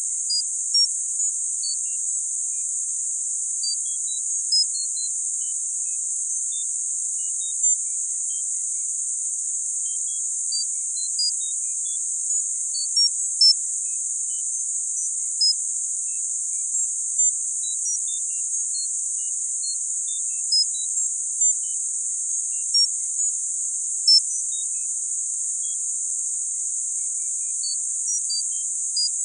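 Synthesized tinnitus-masking sound: a steady, high-pitched hiss of filtered noise held in a narrow high band, with short high beeping tones sprinkled at random, about one or two a second.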